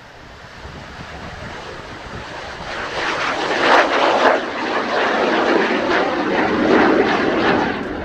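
Kawasaki T-4 jet trainer's twin turbofan engines at takeoff power as it lifts off in a touch-and-go and climbs past, the roar building about three seconds in, loudest through the middle and easing near the end.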